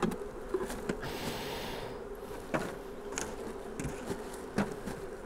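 Honeybees buzzing steadily in a low hum around an open hive, with several sharp knocks of wooden hive parts and the hive tool and a short hiss about a second in.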